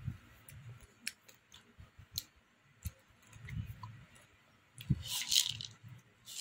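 A toddler's mouth noises close to the microphone: scattered soft clicks and smacks as she chews and sucks on her fingers, with a short breathy hiss about five seconds in.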